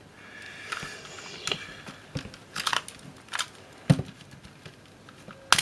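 Plastic housing of an Agfa ePhoto 1280 digital camera being handled and pulled apart: scattered clicks and knocks of plastic parts, with a light rubbing scrape in the first two seconds and the loudest click a little before four seconds in.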